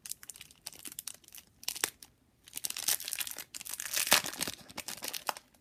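Clear plastic shrink wrap being torn and peeled off a deck of playing cards, crinkling irregularly. It is sparse at first, then busier from about halfway.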